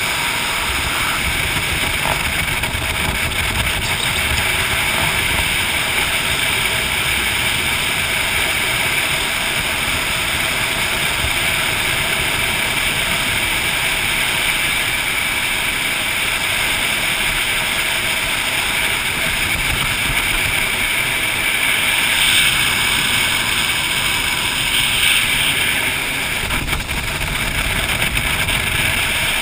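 Jet boat running fast on a river: steady motor noise mixed with water rushing past the hull and wind on the microphone. The water noise swells a few times near the end as the boat reaches rapids.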